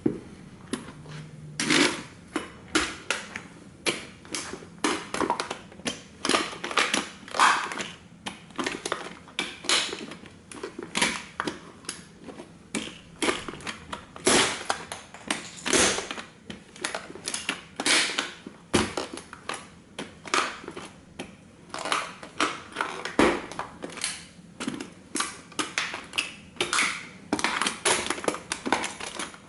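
Vintage tin toy car crumpling under heavy combat boots as they stand and tread on it, giving an irregular run of sharp metallic crackles and crunches, one to three a second, as the tin body buckles and flattens.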